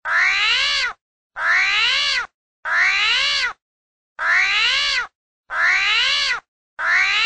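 An animal call, played as the armadillo's sound: six near-identical whiny cries of about a second each, every one rising and then falling in pitch, with short silent gaps between them.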